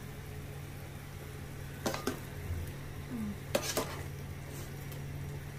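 A metal utensil clinking against a pot of steaming soup, in two quick pairs about a second and a half apart, over a steady low hum.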